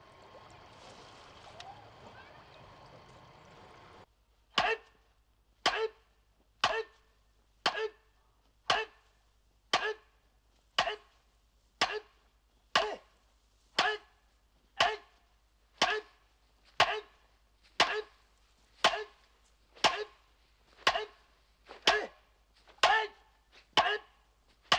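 Wooden practice sword striking a bamboo trunk over and over: sharp knocks evenly spaced about one a second, beginning a few seconds in after faint background noise.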